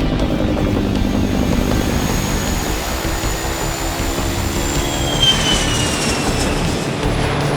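Jet aircraft engines running with a steady rumble and high turbine whine. About five seconds in, a stronger whine enters and slowly falls in pitch.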